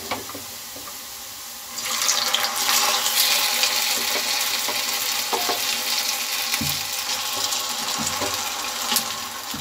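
Sarson ka saag dropped into a kadai of hot oil and browned onions, with a steady sizzle starting suddenly about two seconds in. A few knocks of the ladle on the cooker and pan come before it and through it.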